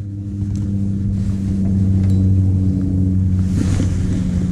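A small boat's motor running steadily with a low, even hum. A brief gust of wind hits the microphone about three and a half seconds in.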